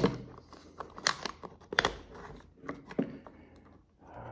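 Film strip and spool scraping and clicking against the metal body of a Fed 1 rangefinder camera as film is fed into it by hand: a handful of sharp rustles and clicks, roughly a second apart.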